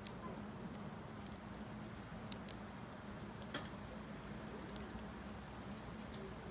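Wood campfire crackling: irregular sharp pops and snaps, a few louder than the rest, over a faint steady low hum.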